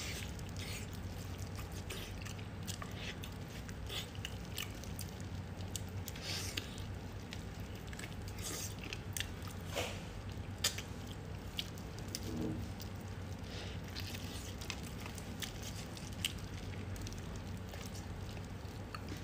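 Close-up eating sounds of braised pig's trotter being bitten and chewed: scattered wet smacks and clicks, over a steady low hum.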